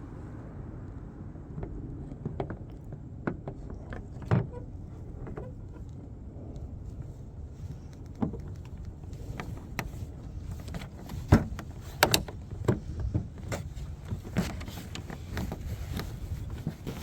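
Scattered clicks and knocks of plastic car trim and wiring being handled and pressed into place, coming more often in the second half, over a steady low rumble.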